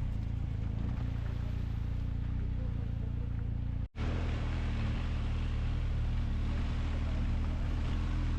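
KTM Duke 390's single-cylinder engine running steadily while riding, over wind and road noise. The sound cuts out abruptly for an instant just under halfway through, then returns with stronger wind noise.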